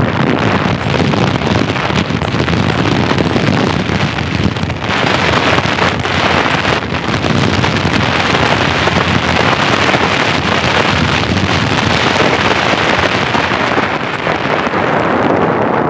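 Heavy wind buffeting the microphone: a loud, steady rush with a rumble underneath, as from moving fast through open air.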